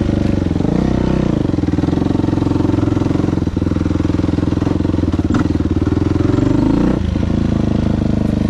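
2000 Yamaha YZ426F's four-stroke single-cylinder engine running while being ridden. Its pitch dips and rises about a second in and drops sharply near the end.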